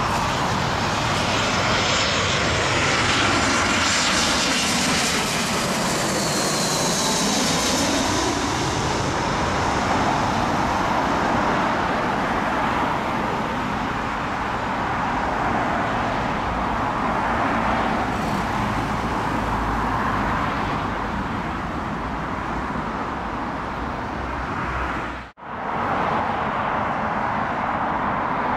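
Jet engines of an Airbus A320-family airliner on final approach, passing low overhead with a sweeping, phasing whoosh in its sound, then a steady jet rumble as it moves off and lands. Near the end the sound cuts out for a moment, and the more distant engine noise of the next arriving airliner follows.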